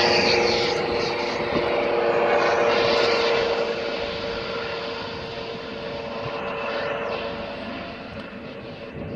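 Rescue helicopter flying away after take-off: the rotor and engine noise, with a steady whine, fades gradually as it recedes.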